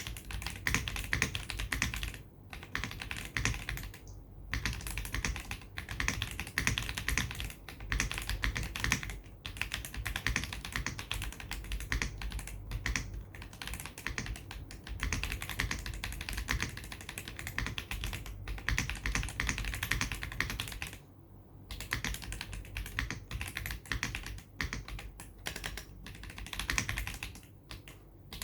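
Typing on a James Donkey A3 mechanical keyboard with pre-lubed WS Heavy Tactile switches and CMK Modern Dolch keycaps: fast runs of clacky keystrokes, broken by a few brief pauses.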